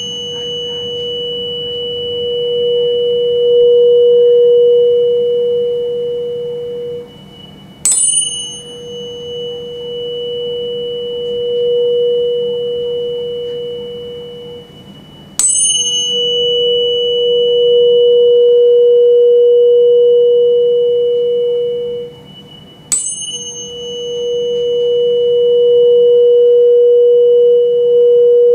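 Tuning fork struck three times, each strike a sharp click with a short high ring, followed by a steady pure tone. The tone swells and fades as the air column in a tube standing in water is moved into and out of resonance; the loudest swell marks the resonant length.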